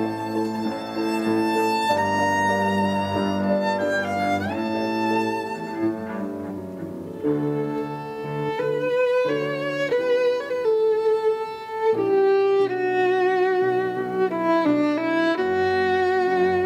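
Live string ensemble playing a slow, lyrical passage: a violin melody with vibrato over held string chords and a cello line, with a short upward slide about four seconds in.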